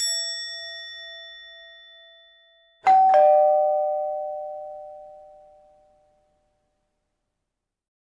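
Two struck chime tones about three seconds apart, each ringing on and fading away over a couple of seconds; the second is louder and starts with a light knock.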